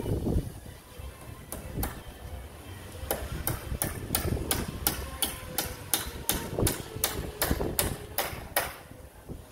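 Hammer striking the top of a wooden pergola post and beam, a couple of blows, then a steady run of about four blows a second that stops shortly before the end.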